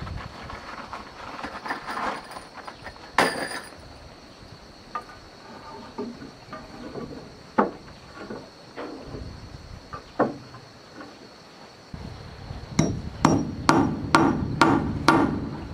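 Hammer blows: a few scattered knocks, then from about three-quarters of the way in a steady run of strikes at roughly two a second, as in driving nails.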